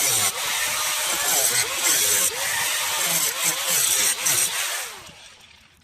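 Power tool cutting through the car's rusted fender sheet metal, its pitch wavering with the load, then dying away near the end.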